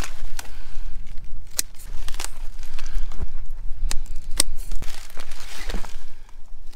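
Kohlrabi being pulled and trimmed by hand: irregular crisp snaps, tearing and rustling of leaf stalks, leaves and roots, with a steady low wind rumble on the microphone.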